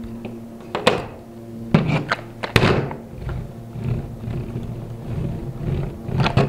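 Hollow knocks and thunks of a plastic battery grass trimmer being handled and set down on a workbench during assembly. A few separate knocks come in the first three seconds, the loudest about two and a half seconds in, with smaller taps after.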